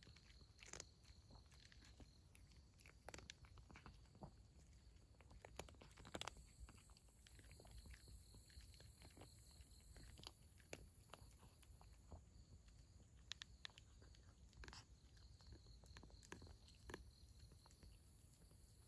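A cat chewing dry kibble: faint, irregular crunches.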